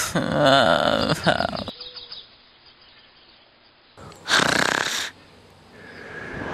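A cartoon snore voiced by a person: a pitched, rumbling snore for the first second and a half, then a short breathy snore about four seconds in. A faint steady high tone follows near the end.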